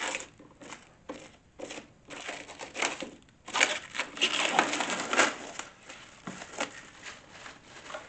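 Clear protective plastic film being peeled off a cool box's lid and display and crumpled in the hand: irregular crinkling and rustling, densest around the middle.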